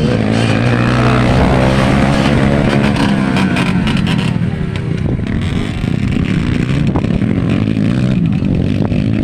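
Several dirt bike engines revving hard as the bikes race along a dirt track, their pitch rising and falling with the throttle.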